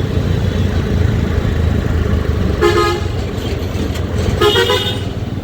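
Two short vehicle-horn honks about two seconds apart, over the steady low rumble of a running engine in traffic.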